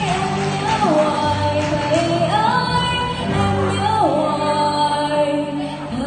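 A young woman singing a Vietnamese song into a handheld microphone, amplified, over instrumental accompaniment; the melody is held in long notes that slide between pitches.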